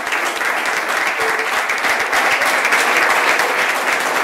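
An audience applauding, a dense patter of many hands clapping that swells a little about two seconds in.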